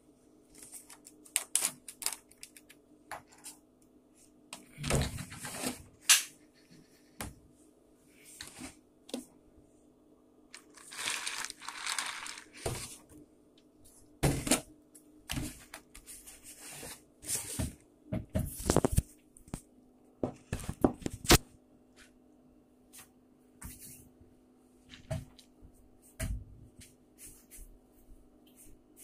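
Irregular knocks, clicks and rustles of things being handled and set down on a wooden table, with a longer rustle about 11 seconds in. A faint steady hum runs underneath.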